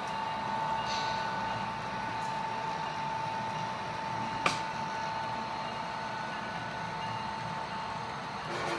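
HO scale model train running on the layout, with a steady high-pitched whine and one sharp click about halfway through.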